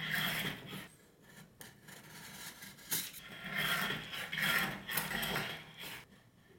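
A metal blade scraping through a frozen ice cream sheet against the steel surface of a cold plate, cutting it into strips. One scrape comes at the start, then a run of scraping strokes from about three seconds in until near the end.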